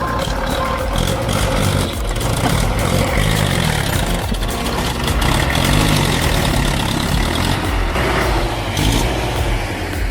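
MTZ-80 tractor's diesel engine running under load while the tractor is stuck deep in mud, its pitch rising and falling as it is revved.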